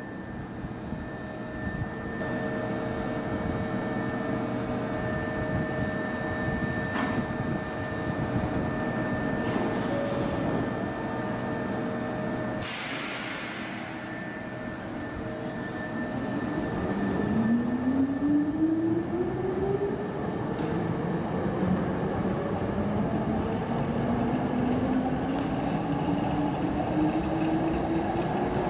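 Hankyu 5300 series electric train standing at the platform with a steady hum of tones. About 13 seconds in there is a short hiss of air. Then it pulls away, its traction motors and gears whining up in pitch as it gathers speed.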